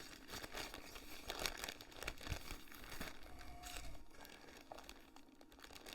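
Packaging rustling and crinkling in irregular bursts as a model train locomotive is worked out of its box.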